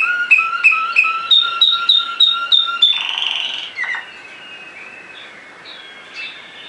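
Waterslager (Malinois) canary singing. It gives a tour of clear, evenly repeated notes at about three a second, then a short rough, rattling passage about three seconds in. After that the song drops to faint, soft notes.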